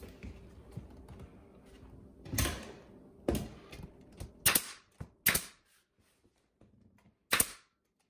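Pneumatic nail gun firing nails through baseboard trim into the cabinet side: about six sharp shots at irregular intervals, the last after a pause of about two seconds. Faint handling of the trim comes before the first shot.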